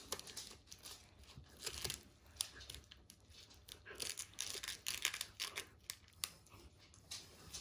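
Dog gnawing a chew bone held in a hand: irregular crunching and scraping of teeth tearing at the chew, in quick scattered strokes.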